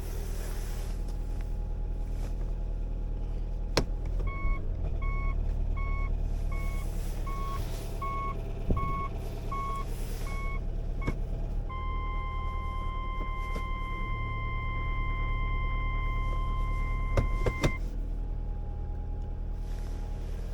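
Subaru Legacy B4's flat-four engine idling with a steady low rumble, with the in-car reverse-gear warning beeping about twice a second for some seven seconds. A steady warning beep of the same pitch then sounds for about six seconds and cuts off suddenly, and a few sharp clicks are heard.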